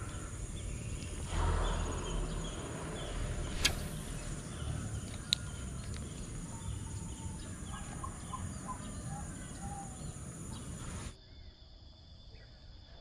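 Outdoor ambience of birds chirping over a low steady rumble, with a sharp click about four seconds in; the sound drops quieter suddenly about eleven seconds in.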